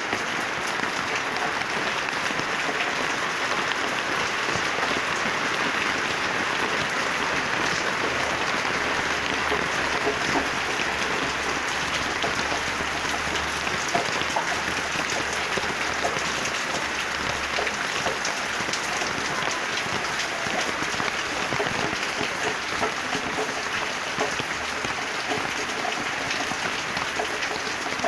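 Steady rain falling on plants: a dense, even hiss of many small drops that holds the same level throughout.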